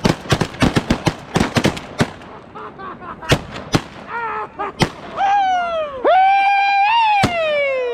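A volley of shotgun fire from several hunters shooting at geese: a rapid string of overlapping shots for about two seconds, then a few scattered shots. From about halfway through, a loud, long yelling cry holds its pitch and then slides down.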